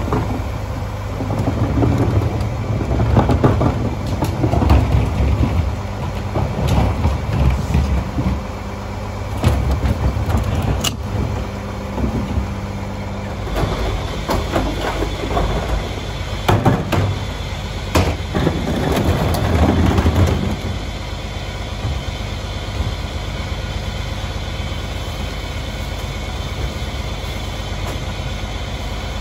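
Mack MR garbage truck idling steadily while plastic trash carts are tipped into the rear hopper of its Heil Formula 4000 packer, with clusters of banging and clattering as cart lids slap and trash tumbles in. Only the idle is heard over the last third.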